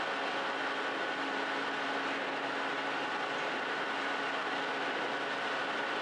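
Bakery machinery running steadily: an even rushing noise with a faint high whine and a low hum running through it.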